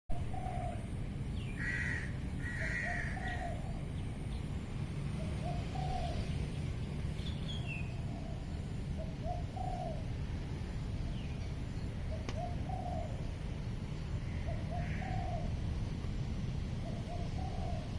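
A bird repeating a short, low double-noted call over and over, roughly every one and a half to two seconds, with a few higher calls from other birds. A steady low rumble runs underneath.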